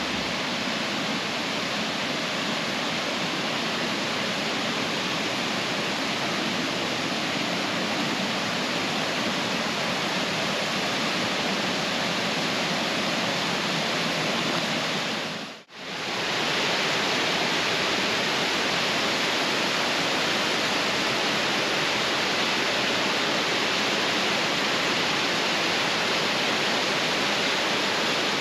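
Rock Creek Falls rushing, a steady, even roar of falling water. It cuts out briefly about halfway through and resumes just as strong.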